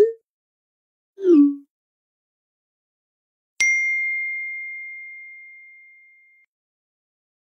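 Text-message app sound effects: a short rising bloop, then a short falling bloop about a second later. About halfway through comes a single bright ding that rings out and fades over about three seconds.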